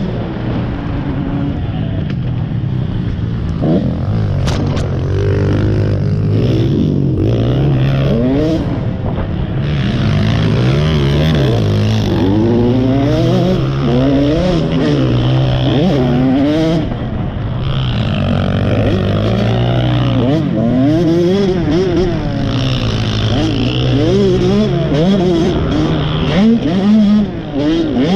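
KTM 85 two-stroke motocross bike engine heard on board while ridden hard on a dirt trail, revving up and dropping back over and over with the throttle and gear changes.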